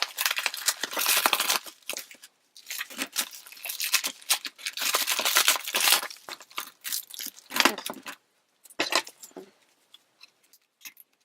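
A mailed package being torn open by hand, the packaging tearing and crinkling in long noisy stretches. About six seconds in it thins out to a few separate rustles and small clicks.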